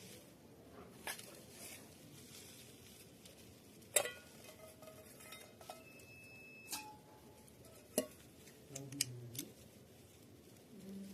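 Scattered clinks and knocks of kitchenware being handled: four or five separate strikes, the loudest about four seconds in, some leaving a short ringing tone.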